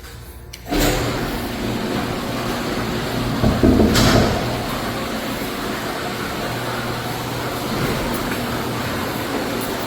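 Garage door opener motor starting suddenly about a second in and running steadily as the door travels, with a louder clunk about four seconds in.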